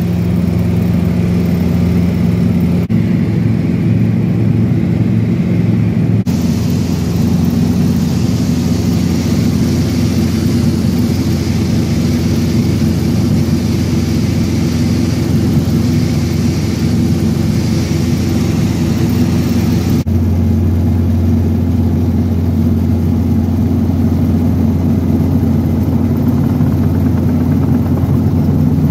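Robinson R22 helicopter heard from inside the cabin in flight: the piston engine and rotors run steadily with several low steady pitches under a hiss. The sound changes abruptly about three, six and twenty seconds in, where the recording is cut.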